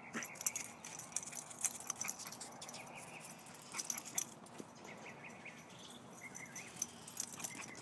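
Faint, scattered light clicks and jingling as a small dog and a cat move about on concrete, in small clusters every second or two.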